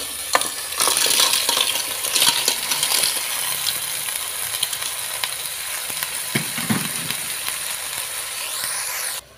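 Lala clams tipped into a pot of hot oil and pounded aromatics: the shells clatter and clink as they land and a steady frying sizzle rises, then the shells rattle against each other and the aluminium pot as they are stirred with a wooden spatula. The sound cuts off abruptly shortly before the end.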